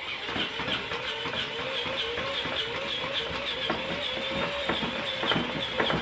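A motorized baby-burping machine switching on and running: a steady mechanical whir and rattle with a wavering pitch that pulses about four times a second, with a few knocks in the second half.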